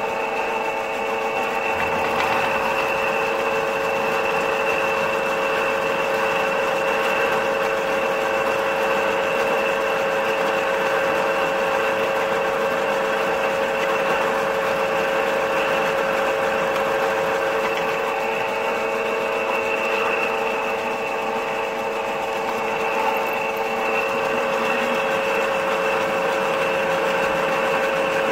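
Toyota 2GR-FE V6 engine running with a steady fast clatter from the VVT-i cam phaser: the rattle of a faulty phaser.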